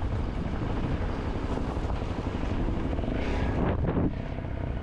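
Dirt bike engine running steadily as the bike is ridden along a rough forest track.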